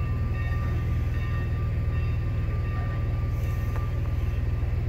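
Steam locomotive running as it is brought up to couple to a passenger car: a steady low rumble with a thin steady whine above it.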